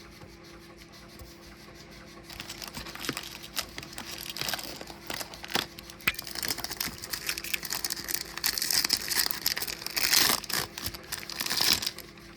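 Foil wrapper of a baseball trading-card pack being torn open and crinkled, an irregular crackling that starts about two seconds in and runs on in uneven bursts, over a faint steady hum.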